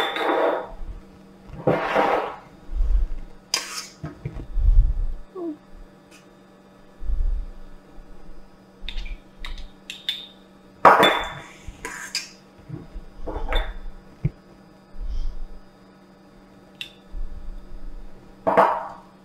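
A metal spoon scraping and clinking against small glass jars as thick cheesecake filling is spooned into them. The scrapes and clinks come in separate short strokes, with a few soft knocks of jars on the counter.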